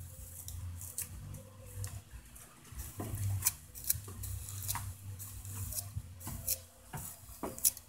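Plastic comb raked repeatedly through thick curly hair, a string of short, irregular scratchy strokes.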